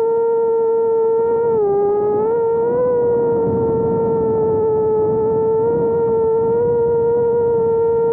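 Small 4-inch FPV quadcopter's brushless motors and propellers whining in flight: one steady, loud pitch that dips briefly about a second and a half in and climbs back by about three seconds as the throttle changes, with rushing air underneath.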